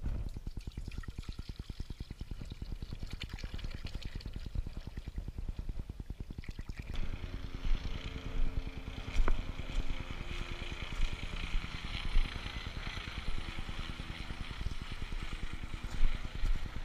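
Wind buffeting the microphone in a steady low rumble. About seven seconds in a higher hiss joins it, with a few faint knocks and one sharp click.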